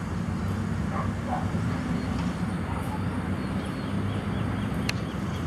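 A vehicle engine running with a steady low hum. A faint string of high chirps comes in the middle, and one sharp click sounds near the end.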